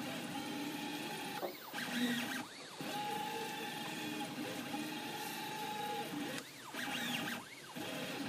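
ZAGI-18 3D printer's stepper motors and peristaltic pump extruder running as it prints icing, with a steady motor whine. Twice, about a second and a half in and again near the end, the pitch sweeps up and back down as the machine makes a fast move.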